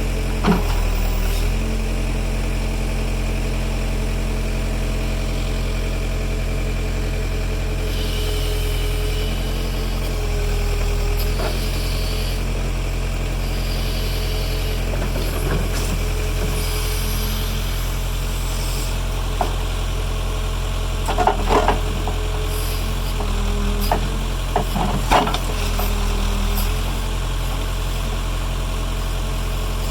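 Backhoe's diesel engine running steadily, its speed stepping up and down a little several times as it works. A few short, sharp knocks come about two-thirds of the way through.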